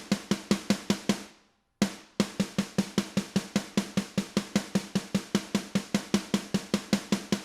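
Snare drum track played back in a loop: a fast, even run of snare hits, about five a second. It stops shortly after the start and starts again just under two seconds in. This is a passage of quieter snare notes being looped while the drum trigger's detail setting is adjusted so that each hit triggers.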